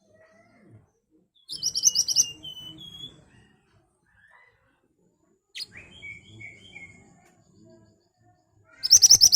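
Mantenan (pied bushchat) singing in loud bursts of rapid, sharp high notes, once about a second and a half in and again near the end. Between them come a few lower, falling notes and a quick rising whistle followed by short chirps.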